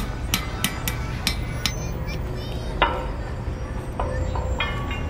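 Blacksmith's hand hammer striking an iron scroll bar on an anvil, each blow ringing metallically. A quick run of about five blows comes in the first second and a half, then a single heavier blow about three seconds in, and two lighter ones near the end.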